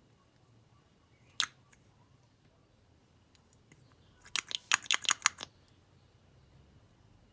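Slime being pressed and mixed by hand, air pockets popping with sharp clicks: a single click a little over a second in, then a quick run of crackling pops around the middle.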